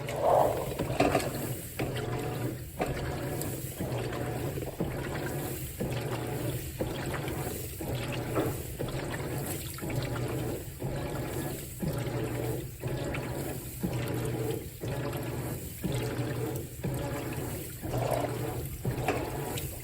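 Whirlpool WTW4815EW1 top-load washer agitating: the single-action agitator churns the water in even strokes about once a second, over a steady motor hum.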